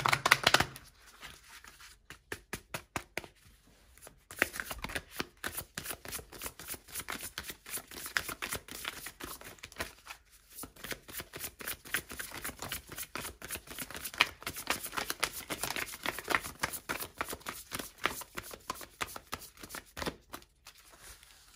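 A deck of tarot cards being shuffled by hand: soft, rapid clicks and slaps of cards sliding against each other in runs, with a few brief pauses.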